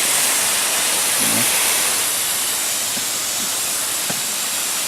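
Garden hose running with the water on fairly strong, giving a steady hiss of spraying water.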